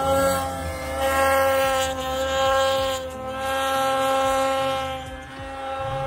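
Two-stroke mountain snowmobile running at high revs as it climbs through deep powder. It has a steady, high engine note that swells and eases several times and drops away about five seconds in as the sled moves off up the hill.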